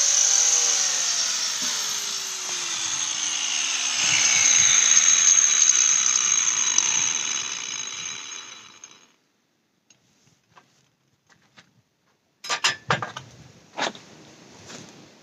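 Angle grinder with a carbide sanding disc winding down after it is switched off, its whine falling in pitch and fading out about nine seconds in. A few sharp knocks follow near the end.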